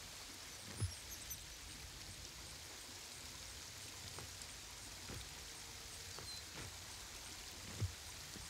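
Steady outdoor ambience: a soft, even rushing hiss with a few faint, short high chirps. Two soft low thumps, one about a second in and one near the end.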